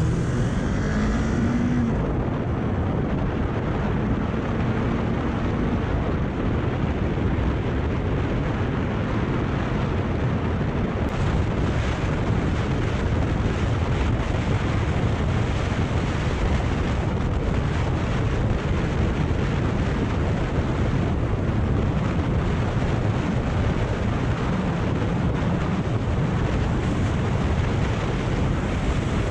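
Kawasaki Ninja 400's parallel-twin engine rising in pitch as the bike pulls away, then a steady rush of wind over the microphone with the engine running underneath at riding speed.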